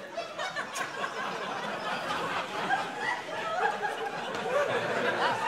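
Studio audience laughing, many voices overlapping.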